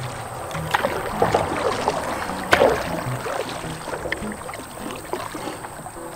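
A paddle dipping and splashing in river water from a small boat, in irregular strokes, with one sharper splash or knock about two and a half seconds in.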